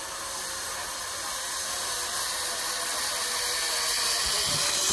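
Zip-line trolley running down the steel cable: a steady hissing whine that grows louder as the rider approaches.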